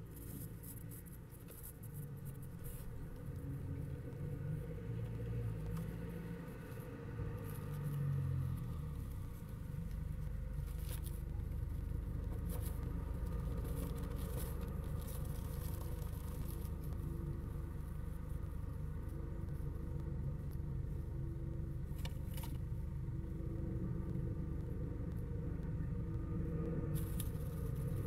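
Steady low rumble, stronger from about a third of the way in, with a few brief faint clicks scattered through it.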